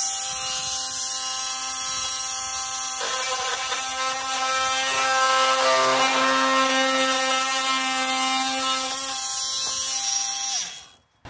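Oscillating multi-tool running and cutting through the bottom lip of a GRP (fibreglass) roof trim: a steady high buzz that shifts in tone about three seconds in as the blade bites. It winds down and stops just before the end.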